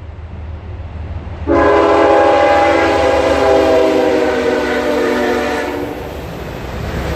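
A single long horn blast, several pitches sounding together, starting suddenly about a second and a half in and held for about four seconds before fading, over a low steady rumble.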